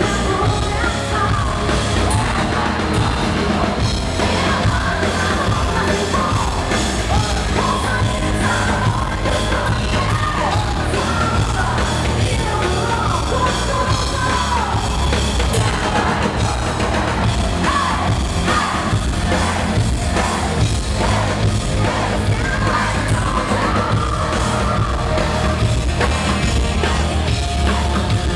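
Rock band playing live: distorted electric guitar, bass guitar and drums, loud and continuous, with singing and shouting on top. The sound is heard in a large hall.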